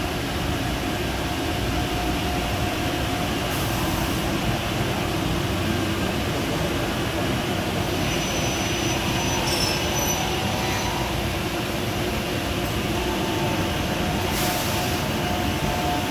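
SCM Tecmatic panel beam saw and its dust extraction running, a steady loud industrial noise, with two short hisses about four seconds in and near the end.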